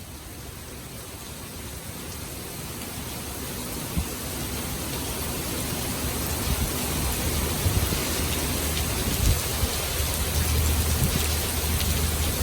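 Steady rushing hiss of heavy rain and water that grows steadily louder, with a low rumble and a few short thumps in the second half.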